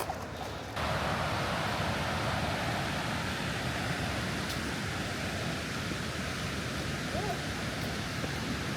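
Waterfall rushing, a steady roar of falling water that cuts in suddenly about a second in and holds level.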